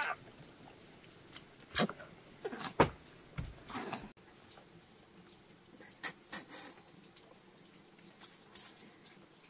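Scattered light clicks and knocks, several in the first four seconds and a few fainter ones later, with quiet between.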